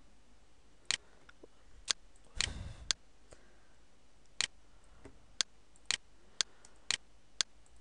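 Computer mouse clicking: single sharp clicks, about one every half second to a second. A short dull bump about two and a half seconds in.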